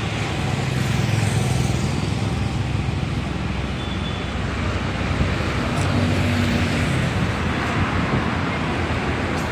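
Road traffic noise: a steady rumble of passing vehicles, with engine hum swelling about a second in and again around six seconds.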